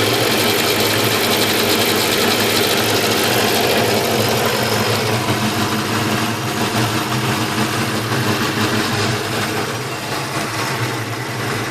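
1995 Ford Mustang GT's 5.0 V8 idling steadily, with a miss, exhaust popping and a weird noise that the owner thinks comes from either the fuel pressure regulator or the PCV valve.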